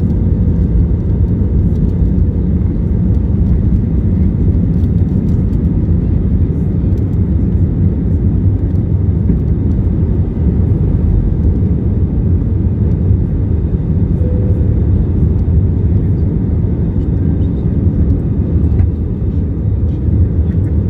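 Cabin noise of an Airbus A320 with its CFM56 engines at takeoff thrust, heard over the wing as it lifts off and climbs out. It is a loud, steady, deep rumble of engine and airflow, with a faint steady hum above it.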